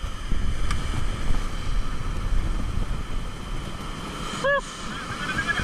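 Wind buffeting the microphone over surf breaking against the rocks below, a steady low noise. A brief voice sound comes about four and a half seconds in.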